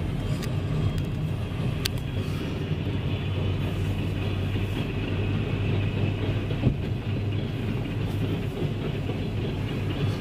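Freight train led by an EMD SD40-2 diesel locomotive passing over a road crossing: a steady low rumble of the engine and rolling cars that swells in the middle.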